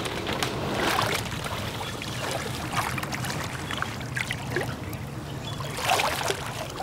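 Shallow river water splashing and trickling as a person wades through it, pushing a plastic kayak alongside, with a somewhat louder splash about six seconds in.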